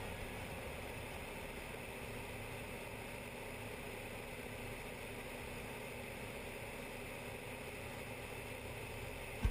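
Steady engine and wind noise of an aircraft in flight, picked up by a camera mounted on it.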